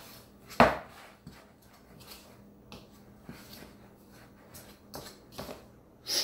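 A spoon stirring dumpling dough of flour, melted butter and milk in a mixing bowl: soft scraping with scattered knocks of the spoon against the bowl, the loudest a sharp knock about half a second in.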